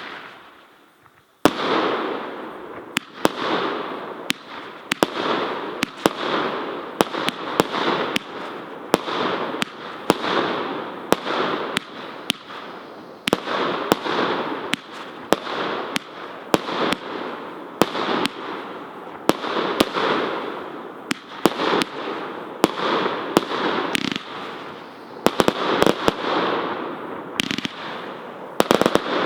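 58-shot, 30 mm fireworks battery (cake) firing: after a brief quiet start, a rapid string of sharp reports begins about a second and a half in, roughly one to two shots a second, each trailed by a fading rush of sound.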